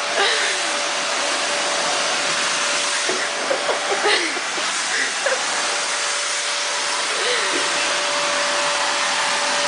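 Vacuum cleaner running steadily: a continuous rushing hiss with a steady whine from its motor.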